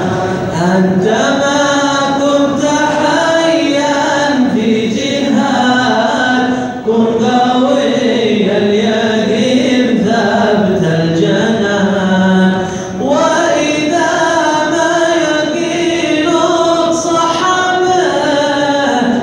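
A group of men chanting an Arabic qasidah, a devotional poem, together and unaccompanied, with two brief pauses for breath.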